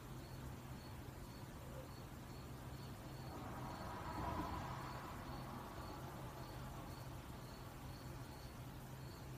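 A cricket chirping faintly and evenly, nearly three chirps a second, over a low steady hum. A soft swell of noise rises and fades about four seconds in.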